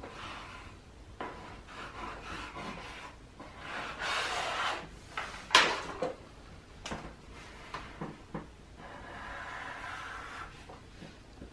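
Paper being handled and rubbed on a tabletop, with a sharp click about five and a half seconds in, then a marker scratching across construction paper near the end.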